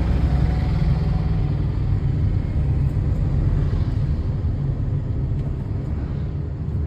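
Steady low rumble of engine and road noise inside the cabin of a Maruti Suzuki car driving through town traffic.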